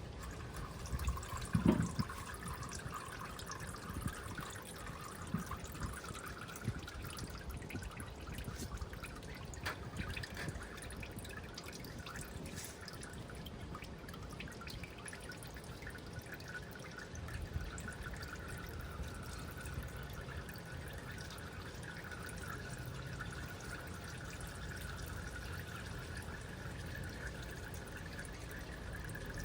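Used engine oil draining from an Onan 4000 generator's oil drain hole and trickling steadily into a drain pan. A brief sharp knock sounds about two seconds in.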